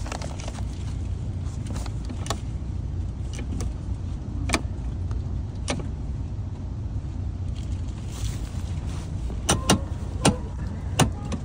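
Clicks and clunks of an Amtrak coach seat's leg-rest and recliner mechanism being worked by hand, with several sharp ones in quick succession near the end, over the steady low rumble of the moving train in the coach car.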